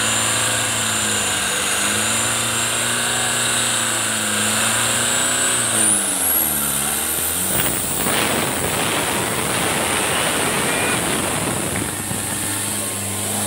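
New Holland 3630 tractor's diesel engine running at high revs. About six seconds in its pitch sags and recovers as it takes the pulling load, then it runs hard under load with a rough, noisy sound.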